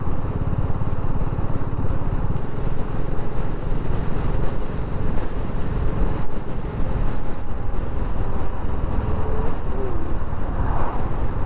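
BSA Gold Star 650 motorcycle's single-cylinder engine running steadily at a road cruise, with the rush of riding noise over it.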